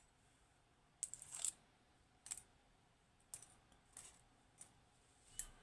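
Faint, scattered small metallic clicks and taps, about half a dozen, from the pins and parts of a DOM IX 6KG lock being handled as the lock is taken apart.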